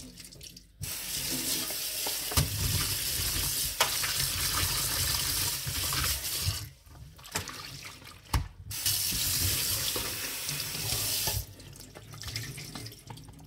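Kitchen tap running onto a silicone cake mould as it is rinsed by hand in a stainless-steel sink. The flow breaks off briefly just past the middle, comes back, and stops about two seconds before the end, with a few sharp knocks along the way.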